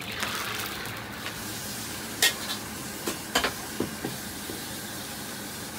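Hot oil sizzling and bubbling in a wok after deep-frying eggplant, settling into a steady hiss. Sharp metallic clanks of the wok and ladle being handled, the loudest about two seconds in and a few smaller ones after.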